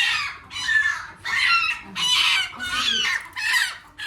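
Domestic hen squawking loudly and repeatedly, about six harsh calls less than half a second each, the alarm cries of a bird being held for wing clipping.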